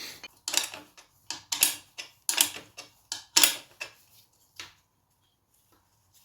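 Metal hand tool clicking and clinking on the top engine-mount bolt of a small moped engine as the bolt is worked loose: about a dozen sharp clicks over four seconds, then they stop.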